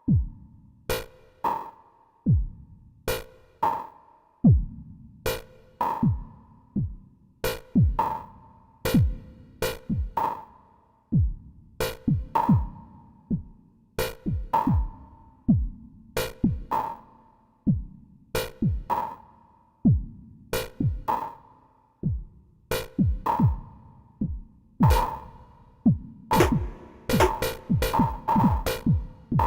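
Electronic drum pattern from an Empress ZOIA EuroBuro modular patch. Deep kicks drop sharply in pitch, with sharp clicks and short metallic pings in a sparse, uneven groove. The hits come faster near the end.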